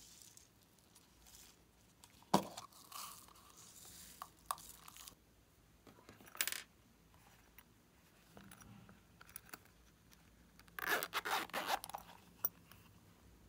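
Zipper of a silicone pencil case being pulled open in a loud rasping run near the end. Before it come scattered light scrapes and rustles as sprinkles are shaken onto slime.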